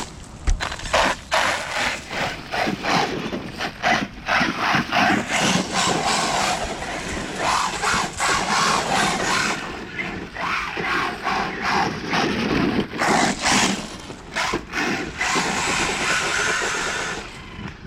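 Electric RC monster truck running on 4S: its motor whines up and down with the throttle in bursts, with clatter and rattles from the drivetrain and tyres on rough ground.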